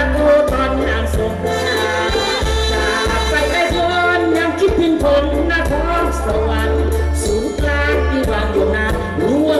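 Live Thai Isan band music played loud through a concert PA, with a steady pulsing bass, a regular beat and a wavering melodic lead.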